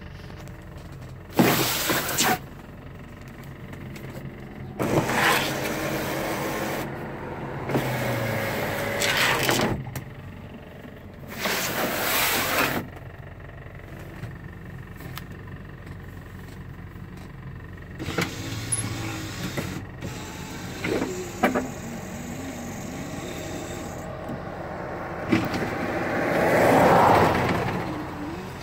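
Electric accessory motors of a 1979 Lincoln Mark V running in short bursts of one to two seconds, four times in the first half. A few clicks follow, then a longer, louder run near the end.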